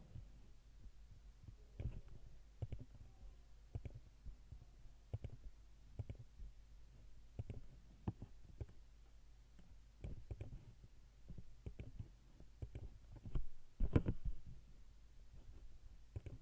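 Irregular clicks from a computer mouse and keyboard, roughly one a second, with a louder cluster near the end, over a low steady hum.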